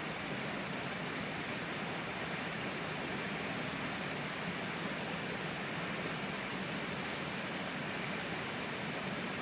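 River water flowing past: a steady, even rush like static, with no breaks. A thin, steady high tone sits over it.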